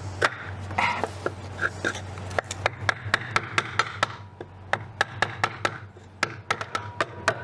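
Many sharp, irregular hammer taps driving a new front seal into the bore of a TH125C three-speed automatic transmission, coming at about three to four a second toward the end, over a steady low hum.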